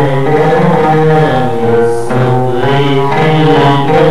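Live Egyptian Arabic concert music: a continuous melodic passage of long held, gently bending notes over a steady low accompaniment.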